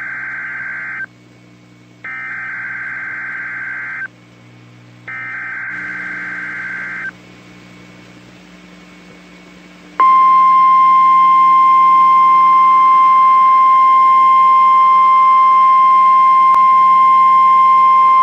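NOAA Weather Radio emergency broadcast: three buzzy bursts of digital EAS/SAME header data, each about a second long and about a second apart. After a few seconds of radio hiss, the 1050 Hz warning alarm tone starts about ten seconds in and holds as a single loud, steady, pure tone.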